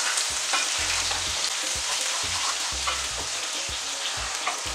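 Oxtail pieces and garlic sizzling in hot olive oil in a stainless steel sauté pan, with scattered scrapes and knocks of a wooden spoon against the pan as the meat is stirred and turned.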